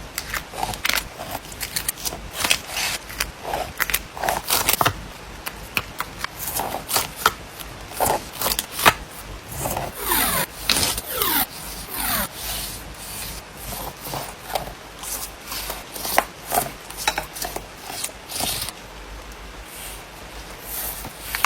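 Close-up paper-craft handling: paper and card being rubbed, slid and pressed down on a desk, with many small taps and scrapes throughout and a few squeaky sliding sounds about halfway through.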